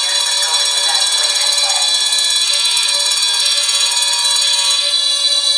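Many fire alarm horns and sounders going off at once: a loud, dense mix of steady tones, some of them cycling on and off every second or two.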